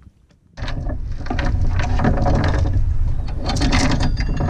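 Anchor chain being hauled aboard by hand, its steel links clanking and rattling over the bow roller without a break. It starts abruptly about half a second in, over a steady low rumble.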